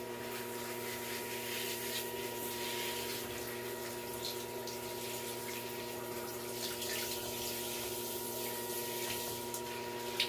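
Shower or tap water running steadily while a small dog is rinsed, with a steady hum beneath the water.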